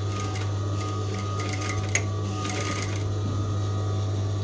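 Singer 3191D200A electric sewing machine stitching a seam, with rapid needle clicking that stops about three seconds in.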